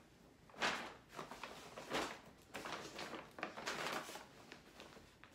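Paper shopping bags rustling and crinkling in a series of irregular bursts as they are handled and set down.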